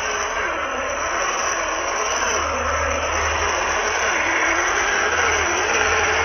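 Small electric motor and gears of a Land Rover Defender-style MN-series RC crawler whining as it drives through shallow water. The pitch wavers up and down with the throttle over a steady hiss.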